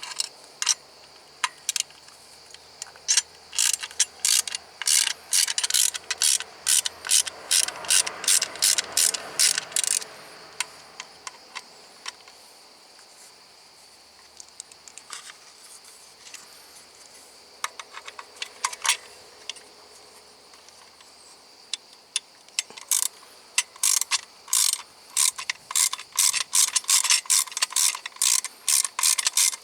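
Hand ratchet wrench clicking in quick runs of strokes, with a quieter pause in the middle.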